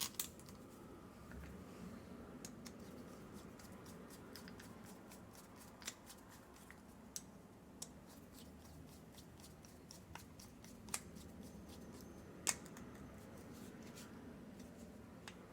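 Scattered light clicks and ticks of small screws and a screwdriver as the primer-bulb cover is screwed onto a small trimmer carburetor; the sharpest click comes about twelve seconds in.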